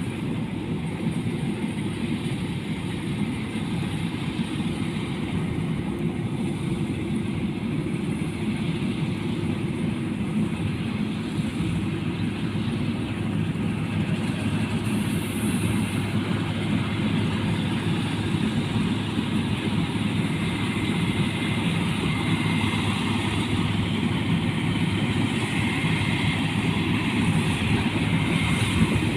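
Cabin rice combine harvester running steadily, a continuous engine drone that grows slightly louder toward the end.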